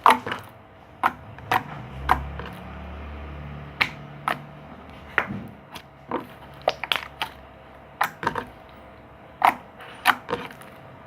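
Pink slime being squished and pressed by hand, giving loud, irregular popping clicks as trapped air bubbles burst.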